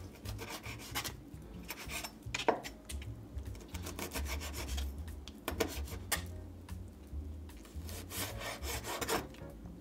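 Kitchen knife chopping squid tentacles on a cutting board: quick, irregular taps of the blade striking the board, over and over.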